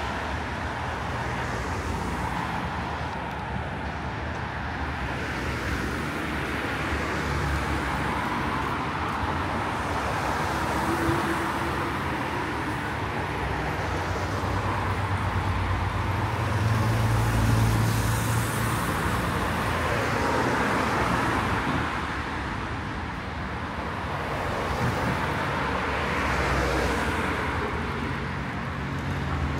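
Street traffic: a steady flow of cars passing, with a louder low engine rumble as a heavier vehicle goes by about halfway through.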